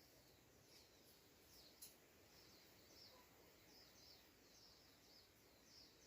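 Faint bird calling: a series of short, high chirps, each dropping in pitch, about two a second, with a single sharp click about two seconds in.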